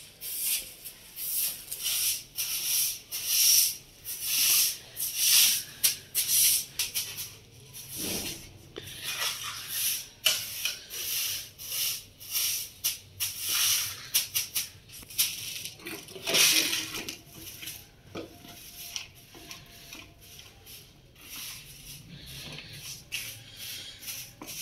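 Soft grass broom swept over a stone-tiled floor in repeated swishing strokes, about one a second; the strokes grow lighter in the second half.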